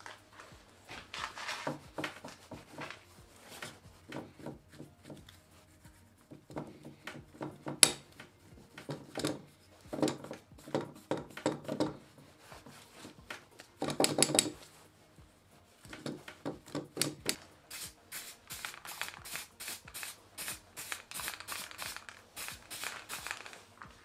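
A stiff paintbrush scrubbing loosened, wet paint off a metal model car body in short, quick strokes. Near the end the strokes come in a fast, even run. A single sharp knock about eight seconds in is the loudest sound.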